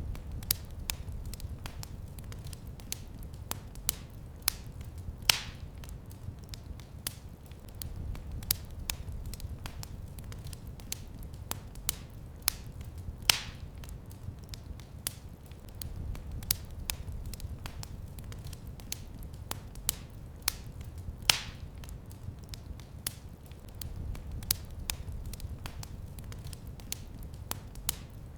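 Wood fire crackling in a fireplace: a steady run of small irregular pops and snaps over a low rumble, with a louder snap about every eight seconds.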